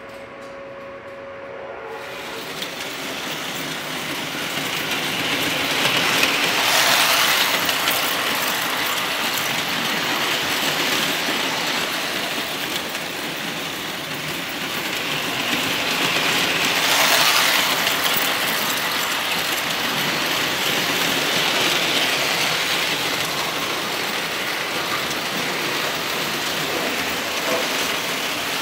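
A Lionel tinplate steam locomotive and freight cars running on three-rail tubular track: a steady metallic rumble of wheels on the steel rails. It grows louder twice as the train passes close by, about seven seconds in and again about ten seconds later.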